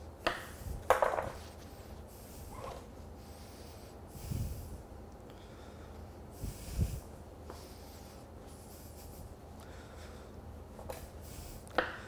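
Quiet handling of butcher's string being looped, pulled and knotted around a rolled shoulder of lamb, with a couple of short, sharp sounds near the start as a knife cuts the string. A few soft low thuds follow later.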